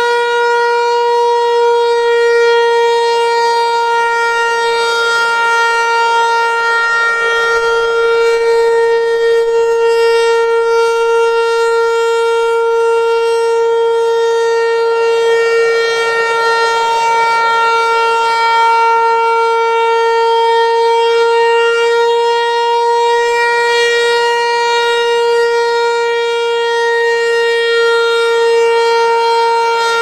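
Federal Signal Equinox rotating electronic outdoor warning siren being tested, sounding one steady held tone with many overtones. The loudness swells and dips gently as the horn turns.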